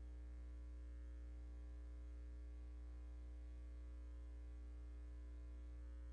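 Steady low electrical hum with a faint buzz of overtones and a light hiss, unchanging throughout.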